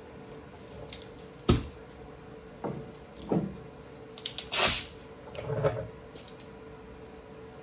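Hand metalwork on a car body's sheet steel: a handful of irregular knocks and short scraping or hissing bursts, the loudest about two-thirds of the way through, over a steady faint hum.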